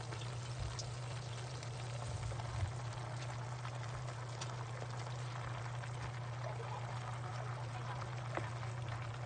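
Pochero broth simmering in a frying pan, a steady bubbling hiss over a steady low hum, with a few faint ticks as bok choy leaves are laid into the pan.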